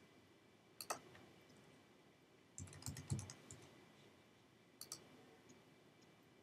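Faint computer clicks: one click about a second in, then a quick run of keyboard keystrokes as a short password is typed, then a last sharp double click near the end.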